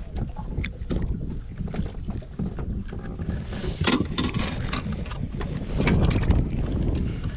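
Gusty wind buffeting the microphone over lake water lapping against a boat's hull, a steady low rumble, with a few sharp knocks and slaps about halfway through.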